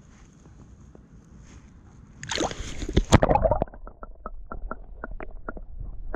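A perch being released from a kayak: quiet lapping water, then about two seconds in a loud splash and slosh that lasts about a second and a half. A muffled underwater rumble follows, with scattered faint clicks.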